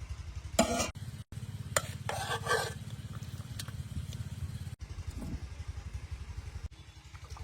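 Chicken gizzards frying in a pan as they are stirred, with short scraping clatters of the spatula against the pan in the first few seconds over a steady low rumble.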